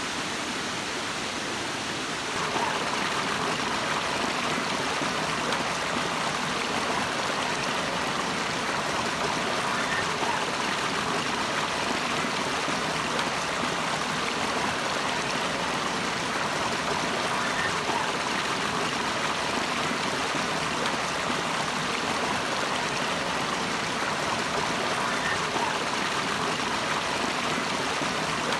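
Running water of a mountain waterfall and stream, a steady rush that gets a little louder about two and a half seconds in and then holds even.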